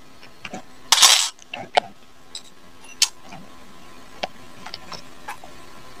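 Small metal hair-clipper parts being handled and cleaned: scattered light clicks and taps, with a brief loud swish about a second in.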